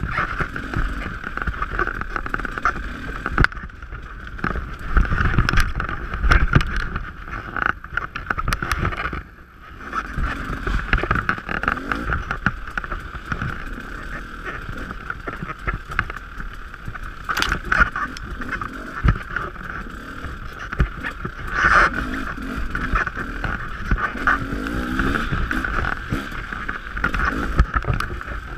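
Dirt bike engine running on a tight wooded trail, the throttle opening and closing as the rider works through turns, with knocks and clatter from the bike going over rough ground. The engine drops off sharply for a moment about nine seconds in, then picks up again.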